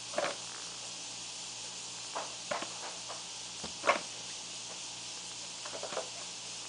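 Steady recording hiss, with five or so short, faint unidentified sounds scattered through it. The strongest comes a little past the middle.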